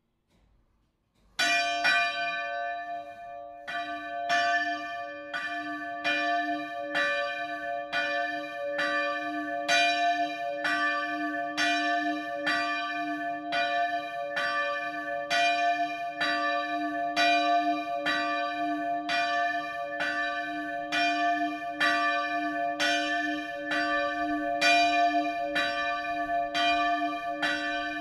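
A large bronze church bell swung in its steel belfry frame, its clapper striking it once each swing in a steady rhythm, every stroke ringing on into the next. It begins suddenly about a second and a half in.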